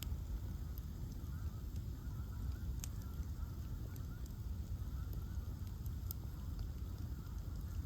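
Bonfire of ash logs burning with a steady low rumble and sharp crackling pops, the loudest about three and six seconds in. A faint wavering whistle comes and goes through it.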